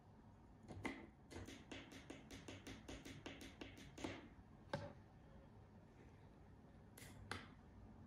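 Faint, quick run of small tactile-button clicks: the learning button on a 12V 433MHz wireless relay receiver board pressed seven times in a row, each press and release clicking, to select its delay-off pairing mode. A few louder single clicks follow, then two more clicks near the end.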